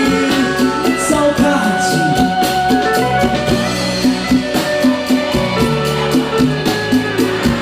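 Live band playing a Brazilian romantic song: a male vocalist sings the chorus word "saudade" near the start, then the band carries on with drum kit, bass and other instruments keeping a steady beat.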